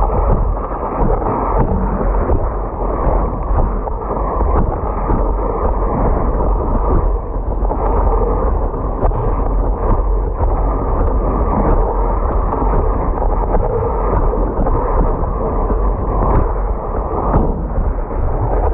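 Wind buffeting an action camera's microphone over the rush and hiss of water under a windsurf board sailing across the lake, with a steady low rumble and a few sharp ticks.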